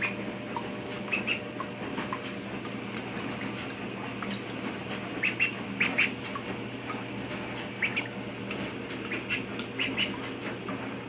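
Indian Runner duckling peeping: short, high peeps, often two close together, coming irregularly every second or so.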